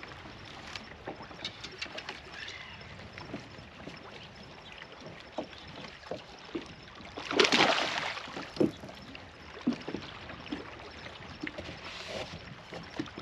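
Water splashing and light knocks around a fishing kayak while a hooked bass is fought to the boat, with one louder splash about seven seconds in.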